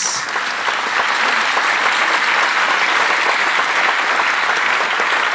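Audience applauding: many hands clapping in a dense, even stream at a steady level.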